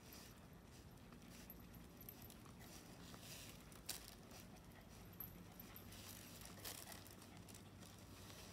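Near silence: a faint steady background hum with a few soft patters and clicks of walking on pavement, one sharper click about four seconds in.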